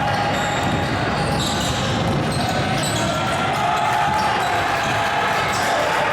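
Basketball game sound in a gym: a steady mix of voices and crowd chatter with a ball bouncing on the court.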